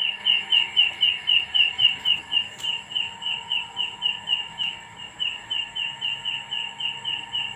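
Insect calling from a jackfruit tree: a steady, even run of short high chirps, about four to five a second, which the speaker suspects is a grasshopper hiding in the tree.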